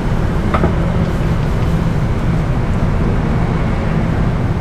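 Steady low mechanical drone of a running motor.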